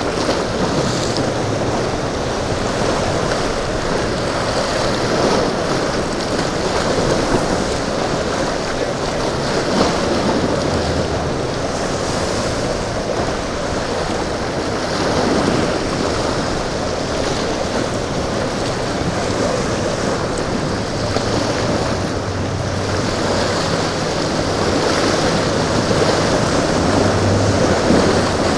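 Rough surf and wind buffeting the microphone, a steady rushing wash of waves, with a faint low hum of boat engines coming and going underneath.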